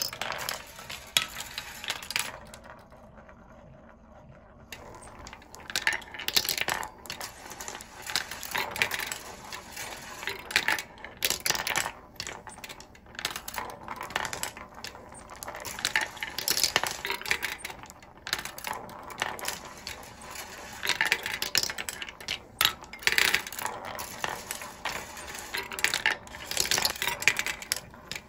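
A wooden marble machine running: 17 mm glass marbles click and clack along wire rails and wooden tracks and knock against each other in a near-continuous patter, with a quieter lull a few seconds in.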